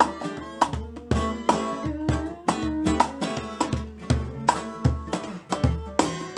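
Intro music: a melodic tune over a steady beat.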